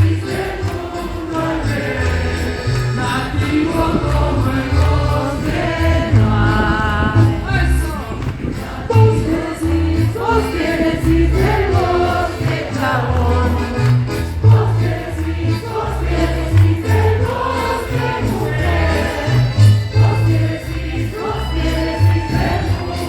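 A large mass choir of many voices singing a song in Spanish over an accompaniment with a strong bass line.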